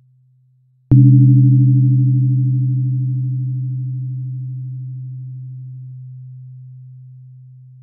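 A low 128 Hz therapy tone is struck once about a second in, with a sharp click at the strike. Higher overtones die away within about five seconds, and the low hum fades slowly and evenly.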